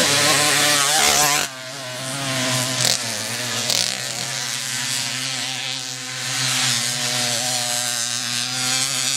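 Motocross bike engine revving hard up close, its pitch wavering. About a second and a half in it cuts off suddenly to a quieter, more distant engine note that rises and falls as the bike works around the track.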